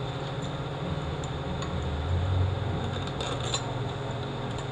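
Steady low hum of a fan, with a few light metallic clicks about three seconds in as bolts and small parts are handled during the transmission reassembly.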